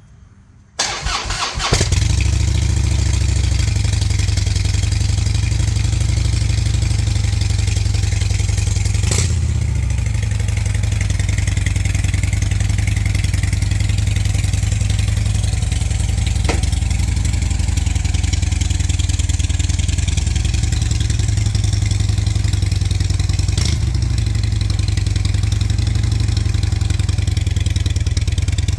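Harley-Davidson Dyna Super Glide V-twin starting after a brief crank about a second in, then idling steadily with a deep, low exhaust note. A few sharp clicks sound over the idle.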